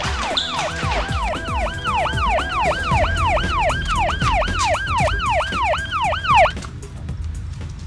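Police siren in fast yelp, rising and falling about three times a second, cutting off suddenly about six and a half seconds in.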